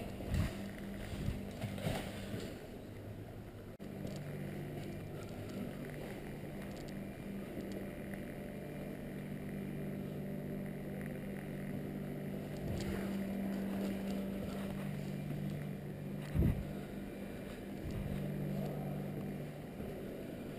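A steady low motor hum, with a few sharp knocks near the start and another about sixteen seconds in.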